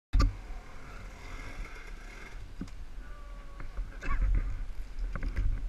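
KTM 300 two-stroke dirt bike engine with a Slavens Racing "Kangaroo" build, lugging at low revs with a steady low rumble. It gets louder about four seconds in, with scattered knocks on top.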